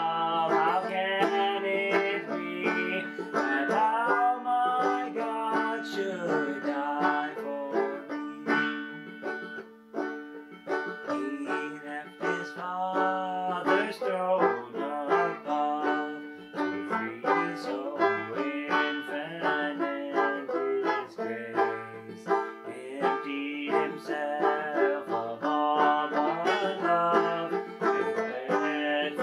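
Banjo played steadily, with a man singing along to it.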